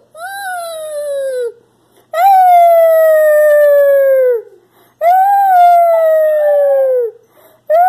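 Chihuahua puppy howling: long drawn-out howls, each about two seconds, sliding slowly down in pitch, three in a row with a fourth beginning near the end.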